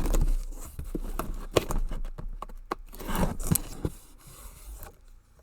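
A large cardboard shipping box and its packing being handled: irregular scraping, rubbing and clicking, dying away near the end.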